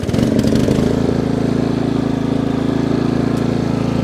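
Cub Cadet CC30H riding mower's engine starting: it catches right at the start, runs unevenly and picks up speed for about the first second, then settles into a steady run.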